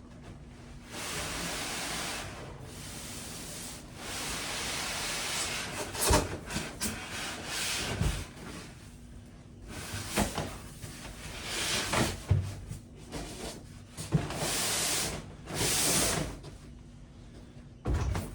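Packaging being handled during an unboxing: repeated rustling and scraping sweeps of packing material, each a second or two long, with several sharp knocks in between.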